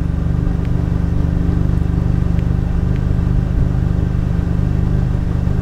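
Car engine running steadily, heard from inside the cabin: an even low hum that does not change.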